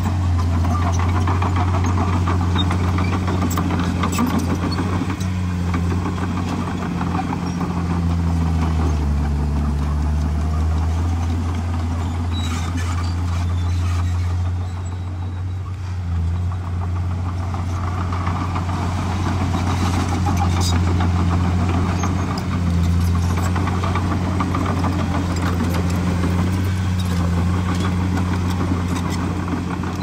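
Komatsu bulldozer's diesel engine running steadily under work, its pitch dipping about nine seconds in and recovering, and easing off briefly around the middle.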